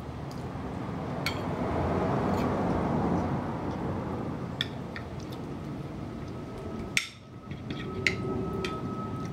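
Close-up eating sounds: spaghetti slurped in and chewed, the loudest stretch a couple of seconds in, with a few sharp clinks of fork and spoon against the plate.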